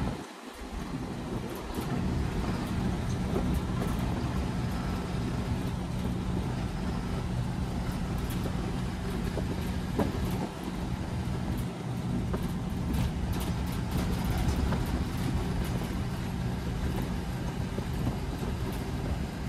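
A GSRTC AC luxury coach on the move: steady engine and road rumble with a low drone, plus light scattered rattles.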